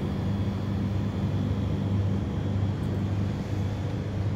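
Steady low mechanical hum that holds unchanged throughout.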